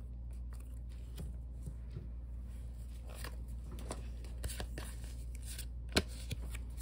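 Pokémon trading cards being handled in the hand, sliding over one another with faint soft rustles and small clicks, and a sharper click about six seconds in, over a steady low hum.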